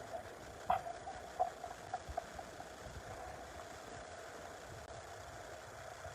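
A steady mechanical hum, with a quick run of short clicks and taps in the first few seconds, the sharpest about a second in.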